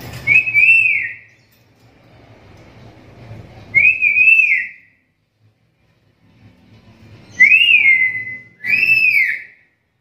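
Black-capped lory giving loud whistled calls: four rising-and-falling whistles, the last two close together near the end.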